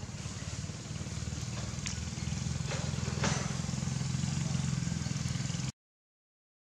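An engine running with a low, even rumble that grows louder over the first few seconds, with a few sharp clicks over it; the sound cuts off suddenly near the end.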